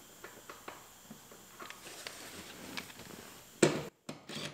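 Quiet handling sounds of a car's rear seat bolts being set: faint clicks and taps of hands, bolts and a cordless impact wrench's socket on the seat mounts, with one short, louder knock about three and a half seconds in.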